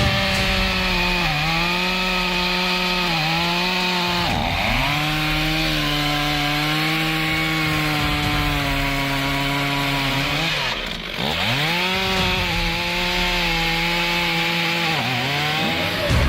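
Chainsaw engine running at high revs while cutting wood. Its pitch sags each time the chain bites in and climbs back, with deeper dips about four and eleven seconds in.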